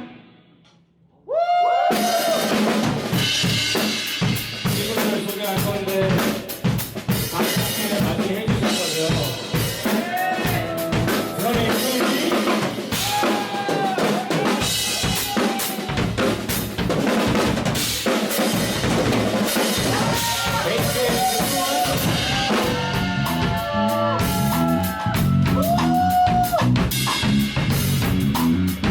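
Live band music with a full drum kit (kick, snare and rimshots) driving under pitched instruments. The music comes in sharply about a second in, after a brief silence.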